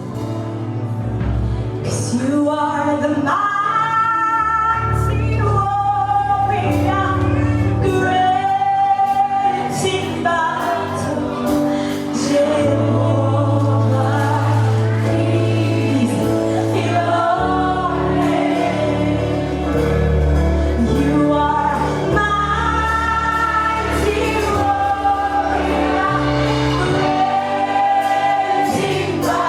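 Gospel music: singers with a choir over a band with steady bass and drums.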